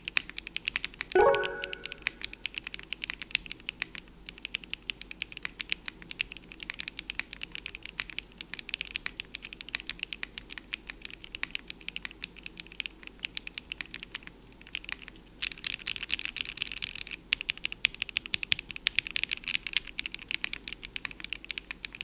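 Typing on a QK Cub65 65% mechanical keyboard built with a polycarbonate plate, no foam and pre-lubed DK Blueberry Swirl linear switches: a steady run of keystrokes, with a faster flurry about fifteen seconds in. A short pitched tone rings out about a second in.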